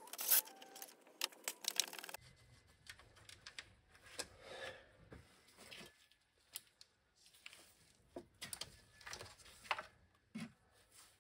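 Faint handling noises of an engine's oil filter housing being worked loose and lifted off: a quick run of clicks in the first two seconds, then scattered light clicks, metallic taps and rubbing.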